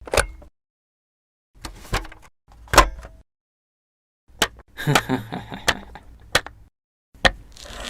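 A series of short knocks and clatters in separate bursts, with dead silence cut in between them, like edited-in stop-motion sound effects. There is a single knock at the start, two small clusters about two and three seconds in, a longer busier clatter around five to six seconds, and another burst near the end.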